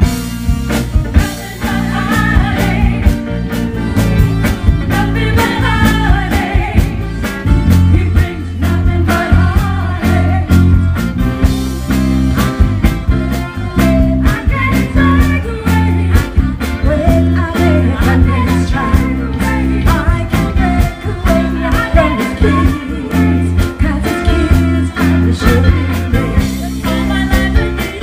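Live band playing a Motown song through PA speakers, with female singers and a strong bass line.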